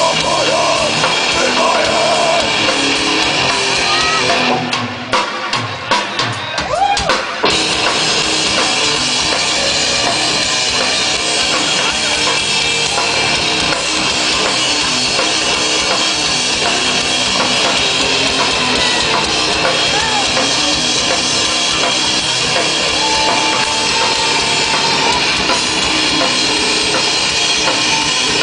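Rock band playing loud and live, with drums driving throughout. About five seconds in, the band drops out for a couple of seconds to a few sharp drum hits, then comes back in at full volume.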